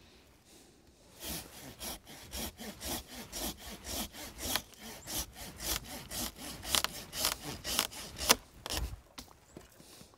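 Hand pruning saw cutting through a tree branch in steady back-and-forth strokes, about two to three a second, starting about a second in.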